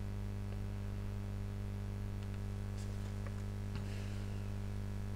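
Steady low electrical hum, with a few faint light clicks scattered through.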